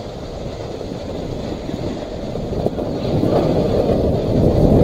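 Snowboard sliding and scraping over packed snow while riding downhill, with wind rushing over the microphone. The gritty noise grows louder over the last couple of seconds.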